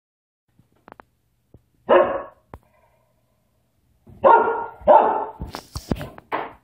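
Dog barking, four loud barks: one about two seconds in, then three in quick succession near the end. Short sharp knocks and clicks come in between.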